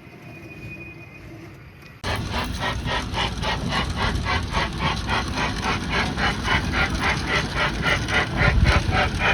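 Level-crossing alarm at a mini railway ringing in rapid, evenly spaced strokes, about four a second, over a low rumble. It starts abruptly about two seconds in, after a quiet stretch.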